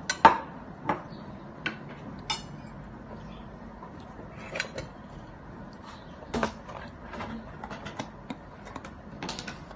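Spoon and fork clinking and scraping against a plate during a meal, in short irregular clicks every second or so, the loudest ones right at the start.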